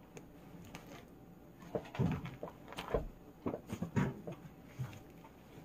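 Scattered light knocks and clunks, about half a dozen over a few seconds, as a countertop appliance with a clear plastic jar is shifted and set in place on top of a rolling cart.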